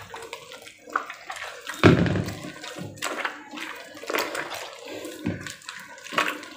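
A hand squeezing and kneading churned cream in a metal bowl, with wet squelching and sloshing in uneven strokes as the butter separates from the buttermilk.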